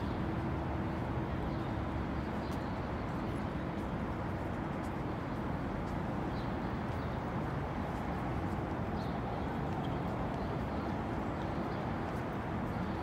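Steady city street ambience: distant traffic noise with a faint steady hum underneath.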